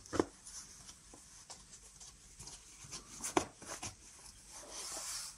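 Road tire being worked by hand onto a carbon clincher rim: soft rubbing of rubber and fingers on the rim, with a few small clicks, the loudest just after the start and another about three and a half seconds in.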